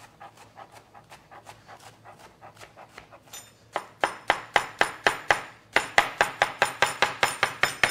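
Chef's knife chopping bok choy on a plastic cutting board: light, quick strokes at first, then from about four seconds in, loud sharp chops about four a second.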